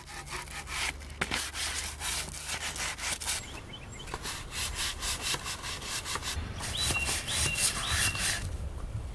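Quick, repeated hand strokes rubbing down the old wooden frame of a rocking chair, a rasping scrub kept up steadily. A bird chirps a few times near the end.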